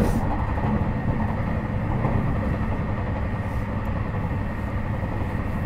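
Running noise of a JR Hokkaido 721 series 4000 subseries electric train (Toshiba GTO inverter) at speed between stations, heard inside motor car Moha 721-4202. It is a steady rumble of wheels on rail with a faint steady high whine.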